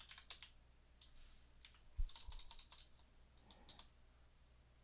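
Faint typing on a computer keyboard: scattered single keystrokes, with one heavier thump about two seconds in.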